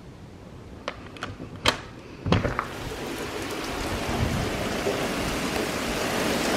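Heavy rain pouring onto pavement and a porch, growing steadily louder from about two seconds in. It is preceded by a few sharp clicks and knocks.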